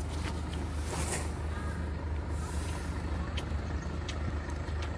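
Car engine idling steadily, with a cow eating a roti at the open car window: a few short clicks, and a brief breathy hiss about a second in.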